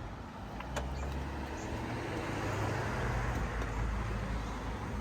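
A car's steady low hum with a faint hiss, growing slightly about a second and a half in.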